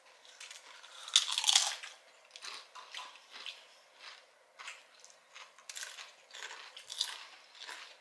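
A tortilla chip with dip bitten with one loud crunch about a second in, then chewed with a string of shorter crunches.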